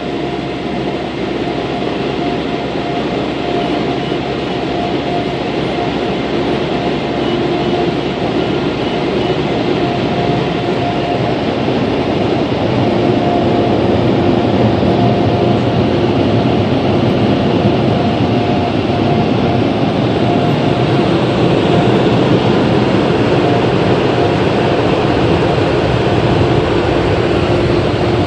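Overhead air-dryer blowers of a touchless automatic car wash, heard from inside the car: a loud, steady rush of air with a constant whine, getting louder around halfway through.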